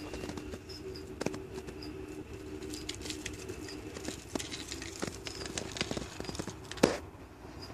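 Two scorpions scuffling on cork bark: irregular small clicks and scratches of legs and pincers on the bark, busiest in the middle, with one sharper knock near the end.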